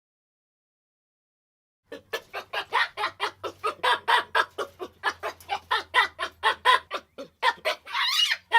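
A fast run of short repeated animal calls, about four or five a second, starting about two seconds in and ending with a longer call that rises and falls.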